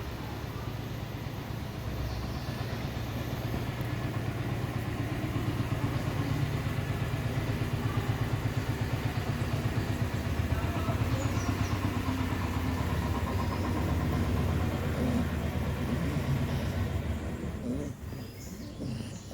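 Dog snoring: a low, fluttering rumble that builds over several seconds, holds, and then drops off near the end.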